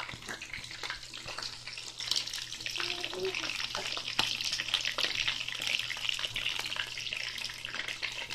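Chicken frying in hot oil in a pan, sizzling steadily with scattered popping crackles of spattering oil. The sizzle grows louder about two seconds in.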